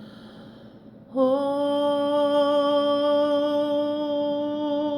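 A woman's voice chanting in light language: after a soft breath, she sings one long, steady held note on a vowel, starting about a second in.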